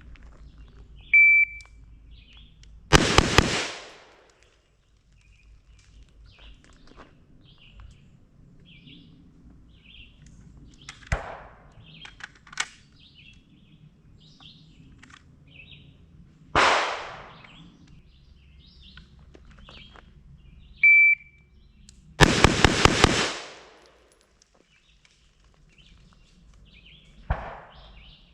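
A shot-timer beep, then about two seconds later a quick string of gunshots from a carbine or pistol. Single shots follow at intervals. A second beep starts another fast string of about five shots, and one last shot comes near the end.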